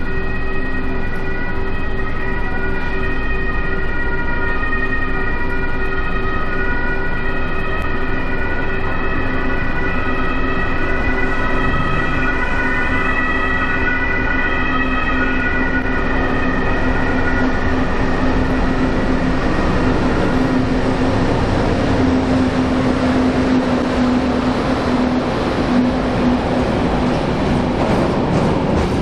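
A train at the station gives a steady whine of several high tones over its running noise. The whine fades out about two-thirds of the way through, while the rumble of wheels on the track builds toward the end.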